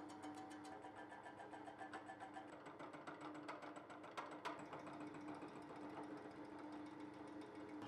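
Milling machine face-milling steel mounting pads: the face mill's cutter strikes the metal in a fast, even rhythm of about seven ticks a second over a steady spindle hum. Faint throughout.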